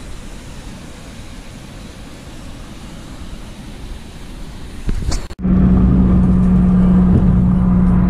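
Steady hum and rumble of a car's engine and road noise heard from inside the cabin while driving, starting abruptly about five seconds in. Before it, a few seconds of even rushing noise.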